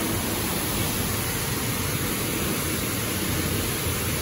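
High-pressure washer jet spraying water onto a concrete floor and under a car, a steady, unbroken hiss.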